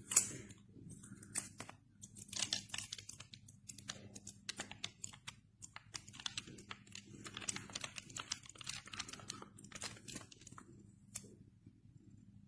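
Crisp US $100 paper banknotes being handled and flexed: an irregular run of dry crackles and snaps, loudest right at the start, that stops about a second before the end. A faint steady hum runs underneath.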